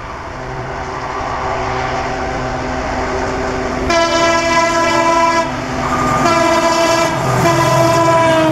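Diesel locomotive hauling a passenger train approaches, its engine and wheel noise growing louder. It sounds its multi-tone horn twice: a blast of about a second and a half, then a longer one whose pitch drops as the locomotive goes by.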